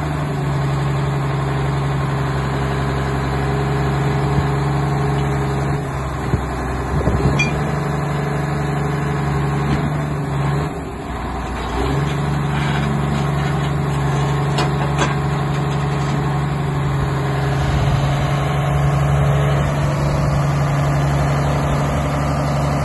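Cat 140H motor grader's diesel engine idling steadily, with a few brief knocks and clicks partway through.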